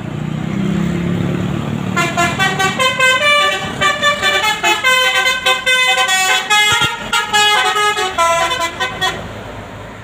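A bus engine passing, then a Basuri telolet horn, the multi-trumpet bus horn, playing a fast melody of stepped notes from about two seconds in for some seven seconds, cutting off sharply near the end.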